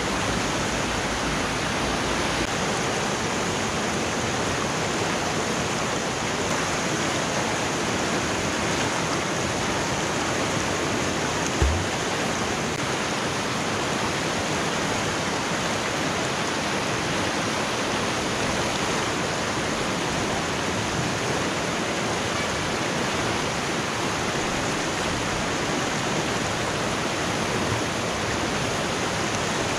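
Fast mountain river rapids rushing steadily over rocks, with a single low thump about twelve seconds in.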